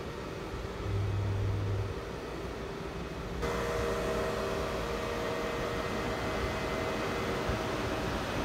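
Digital cinema projector's cooling fans running steadily, a whirr with several held whining tones. About a second in, a low hum sounds for about a second. About three and a half seconds in, the fan noise becomes suddenly louder and brighter.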